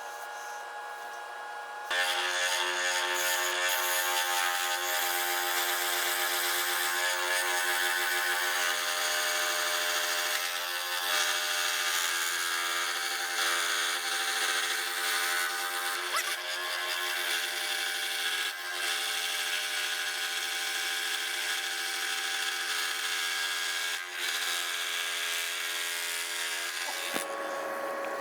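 A power tool running steadily as it cuts or sands wood, a constant motor whine under a rough grinding noise. It starts about two seconds in and stops near the end.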